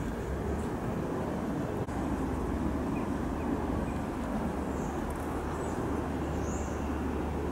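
Steady low rumble and hum of a London Underground train and its track, with a brief break about two seconds in and a few faint high squeaks near the end.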